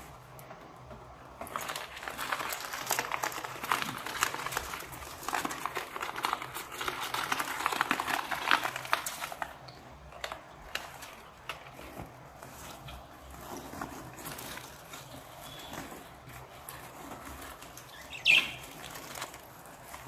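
Rustling and rattling of a wire travel cage and its carry bag as they are handled, with budgerigars fluttering and scrabbling inside, busiest in the first half. One sharp budgie chirp near the end.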